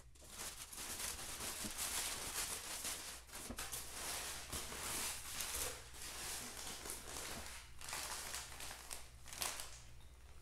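Crumpled kraft packing paper rustling and crinkling as it is pulled out of a cardboard shipping box, in a string of irregular crackles.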